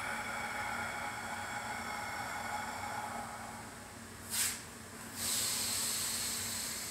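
A man's breathing during a stretch: a long breath of air that fades away, a short sharp breath about four and a half seconds in, then another long breath from about five seconds in.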